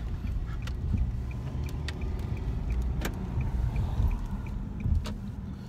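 Steady low road rumble of a car being driven, heard from inside the cabin, with a couple of sharp clicks or knocks.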